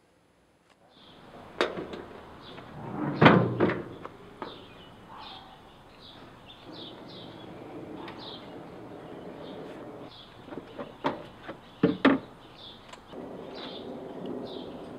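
Car trunk lid opened with a loud clunk about three seconds in, followed by scattered knocks and clicks of things being handled in the trunk, over outdoor background with birds chirping.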